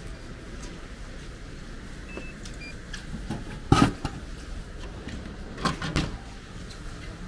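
Drinks vending machine dispensing a hot can: two short beeps after the button press, then the can drops into the dispensing bin with one loud clunk a little under four seconds in. A few smaller knocks follow as the bin's flap is pushed open and the can is taken out.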